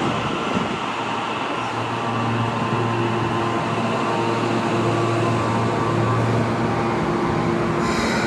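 Osaka Metro Midosuji Line subway train running slowly along the platform and coming to a stop, a steady hum and rumble of motors and wheels. A brief hiss comes near the end.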